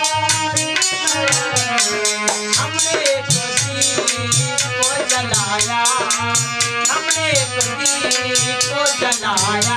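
Live ghazal music: a man singing over harmonium and dholak, with a steady rattling percussion keeping the beat.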